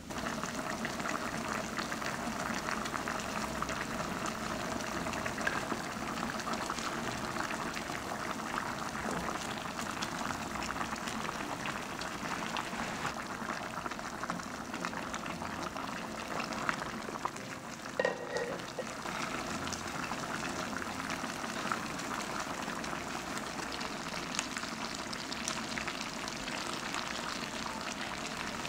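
Beef short ribs braising in a pot of soy-based sauce, the liquid bubbling and crackling steadily as it reduces, with a wooden spoon stirring through it. A brief knock about 18 seconds in.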